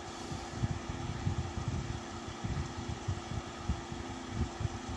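Noctua NF-P12 redux 120 mm case fan running steadily on its low speed setting: an even airy whirr with a faint steady hum-tone and an uneven low rumble underneath.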